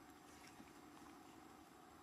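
Near silence: only a faint, steady background hiss.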